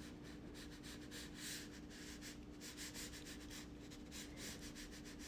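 Faint scratching of a black Crayola crayon making strokes on drawing paper, over a steady faint hum.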